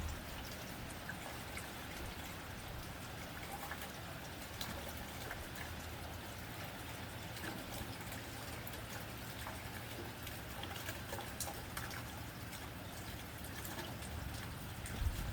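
Steady rain on a tin roof: a continuous patter with many small sharp drop ticks on the metal, over a low rumble.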